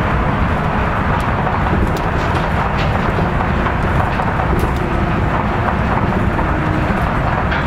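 Kitakyushu Monorail straddle-beam train running between stations, heard from inside the car: a steady, loud rumble of its rubber tyres on the concrete guideway together with the running gear, with faint scattered ticks.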